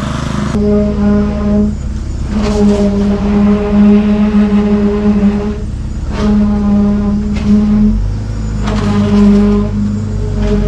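Machinery engines running steadily: a low drone under a humming tone that cuts out and returns every second or two.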